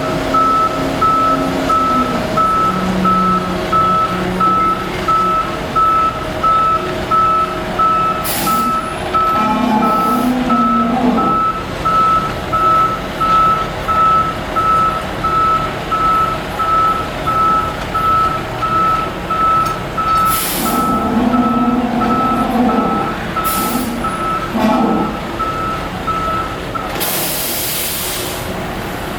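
A concrete truck backing up: its reversing alarm beeps about once a second over the running engine, with several short hisses of air in between. The beeping stops near the end, at about the time of a longer hiss.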